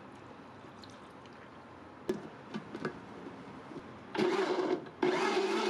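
Countertop blender switched on about four seconds in, blending chunks of watermelon and pumpkin with milk into juice. It runs for under a second, stops briefly, then starts again and runs steadily. Before it starts there is a sharp click and a few light knocks.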